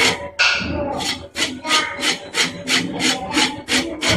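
A carrot being grated on the coarse side of a flat metal hand grater: quick rasping strokes in a steady rhythm, about four a second.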